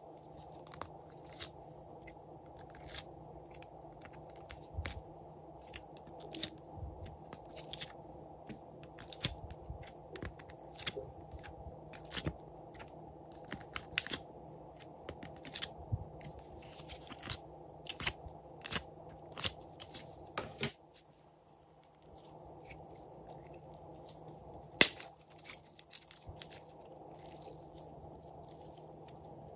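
Hands handling slime and a plastic palette tray: a long irregular run of short sharp clicks, taps and crackles from the plastic and the squeezed slime, over a steady low hum. One louder snap comes a few seconds before the end.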